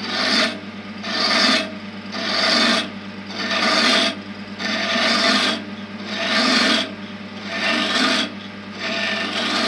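A flat scraper cuts a wooden pen blank spinning on a lathe, shaping it into a taper. It moves in repeated passes, about eight scraping strokes a little over a second apart, over the steady low hum of the lathe.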